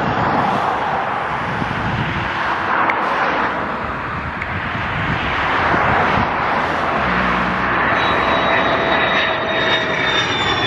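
F-16 fighter's jet engine on landing approach, gear down: a steady rushing roar that swells slightly as the jet nears. A thin high whine comes in about eight seconds in and slowly falls in pitch.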